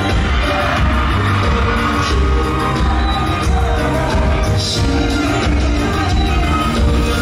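A Thai pop song plays loudly over a concert sound system, with a heavy, steady bass beat and singing.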